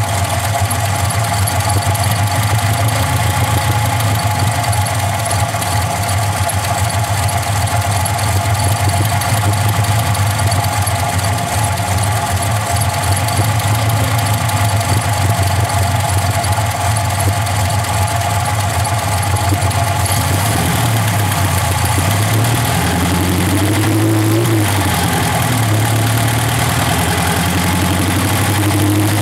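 Chevrolet Chevette's four-cylinder OHC engine and exhaust running steadily, then the engine speed rising and falling a few times in the last several seconds before settling again.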